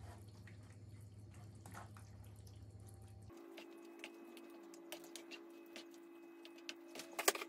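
Wooden spoon stirring a thick, creamy noodle-and-ham sauce in a pan: faint wet clicks and scrapes, with a few sharper knocks of the spoon near the end, over a low steady hum.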